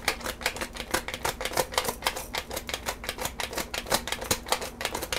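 Stainless steel pepper mill twisted by hand, grinding black peppercorns with a rapid, even run of crunching clicks that stops near the end.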